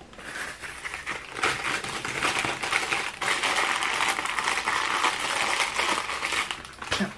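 Plastic packaging crinkling and rustling continuously as it is handled, with many small crackles.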